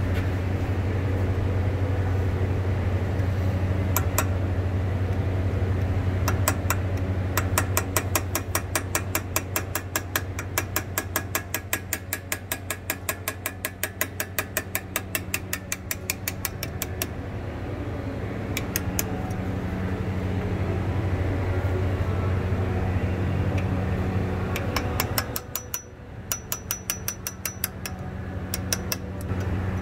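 Hammer tapping a steel pin punch, metal on metal, in rapid runs of light strikes several a second, driving the pad-retaining pins out of a four-piston AMG front brake caliper. A steady low hum runs underneath.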